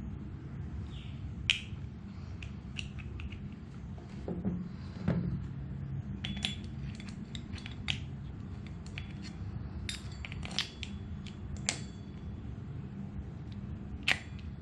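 Scattered sharp clicks and light knocks of a plastic-bodied spinning reel and its metal spool being handled, with a few louder taps over a steady low hum.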